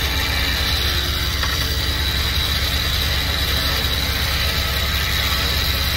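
Electric winch on a Jeep Wrangler's front bumper running steadily as it reels in its line, over the low hum of the idling engine.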